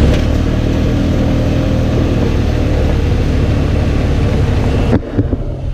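A side-by-side UTV's engine running as it drives along, with a steady low hum and a haze of wind and tyre noise. Near the end the sound drops off suddenly.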